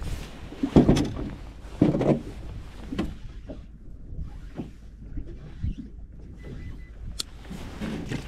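Handling noise from cleaning a horse mackerel on a small boat with fish-grip pliers and a knife: irregular clicks and knocks, with two louder low thumps about one and two seconds in, over a steady low rumble.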